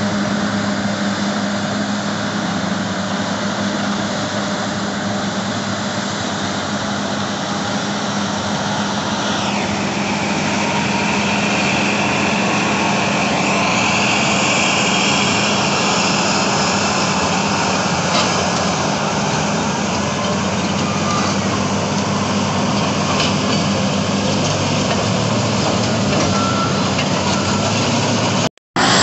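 Diesel engines of Caterpillar D10N bulldozers and 651E scrapers working together, making a loud, steady heavy-machine drone. A higher whine falls in pitch about a third of the way in and rises again a few seconds later.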